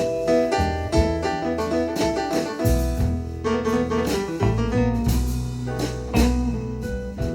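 Instrumental break of a blues song: piano playing over bass and drums, heard as played back through Q Acoustics 3010 bookshelf speakers.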